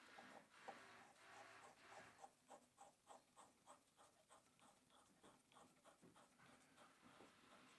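Faint, light metallic ticks and scrapes, about three or four a second, as a keyless drill chuck is screwed by hand onto the threaded end of a steel arbor.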